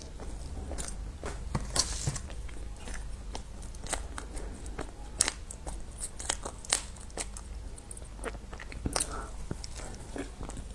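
Close-up eating sounds: a person biting and chewing food, with many short sharp clicks and crackles at irregular intervals over a steady low hum.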